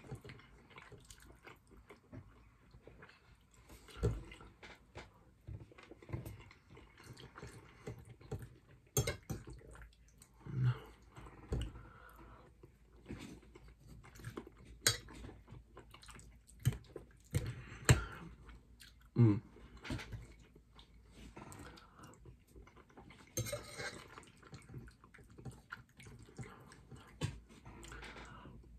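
Close-up eating sounds: chewing, with cutlery clicking and clinking against a plate in scattered sharp ticks and soft knocks.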